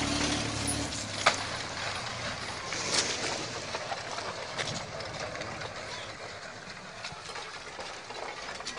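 Landslide debris and a collapsing house rushing and rumbling down the slope, with sharp cracks and knocks, the loudest about a second in. A low steady hum dies away near the start.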